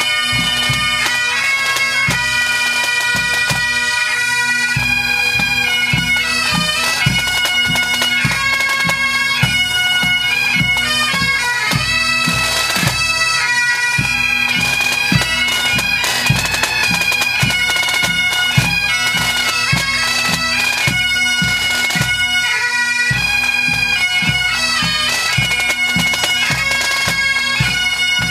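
Pipe band playing: Great Highland bagpipes playing a melody over their steady drone, with snare drums and a bass drum beating a steady rhythm.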